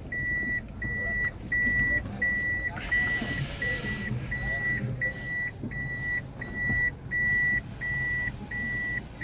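Car's reversing warning beeper sounding a steady, repeating high-pitched beep, about three beeps every two seconds, over a low engine rumble.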